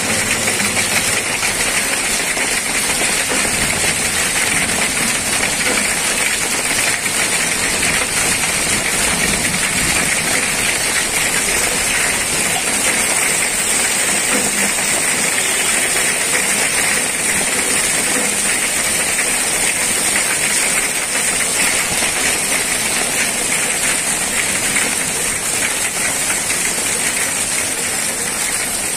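Heavy rain with hail falling onto a road and hail-covered ground, a steady, dense hiss.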